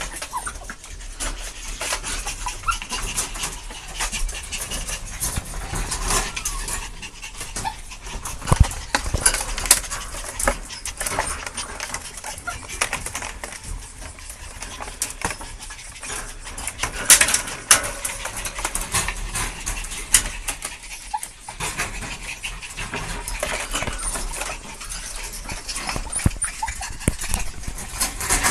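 A Chihuahua puppy and dogs at a wire pet cage: irregular clicks, rattles and scratching from paws and handling against the wire, with occasional small dog whimpers. There is a louder burst of clatter a little past halfway.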